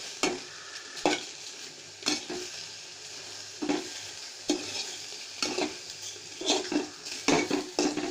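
A spoon scraping and stirring soft boiled pumpkin-peel pieces in a metal pot, in uneven strokes about once a second, over a low steady sizzle as the last of the water cooks off.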